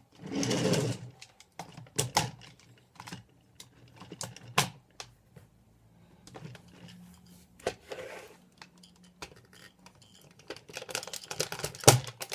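Hard plastic toy robot parts being handled and fitted together: irregular clicks and clacks with some rustling handling noise, a quick run of clicks near the end and a louder snap just before it ends.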